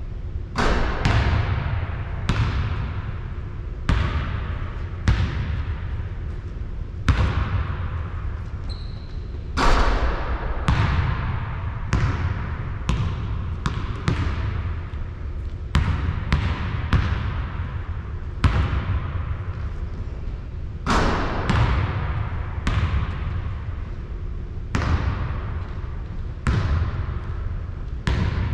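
Basketball bouncing on a hard court about once a second at an uneven pace, each bounce echoing briefly, over a steady low rumble.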